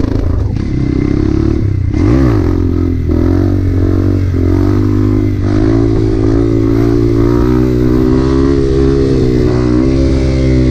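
Dirt bike engine running under way, with a quick rev up and back down about two seconds in and a few smaller throttle changes after it, then held at a steady engine note.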